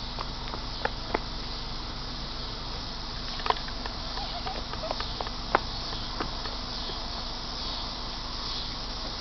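Steady outdoor insect buzzing, with short sharp clicks scattered through.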